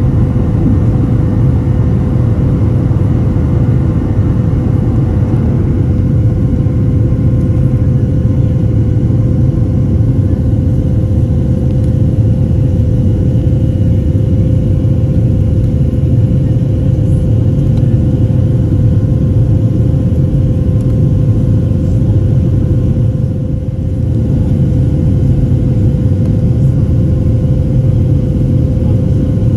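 Airliner cabin noise in flight: a steady, loud rumble of the jet engines and rushing air, with a steady hum running through it. The sound dips briefly in loudness late on.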